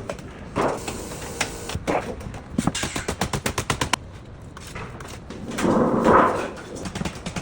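Sheet-metal work on a standing-seam metal roof: a few separate knocks, then a quick run of about a dozen sharp strokes in under a second, and a louder stretch of noise about six seconds in.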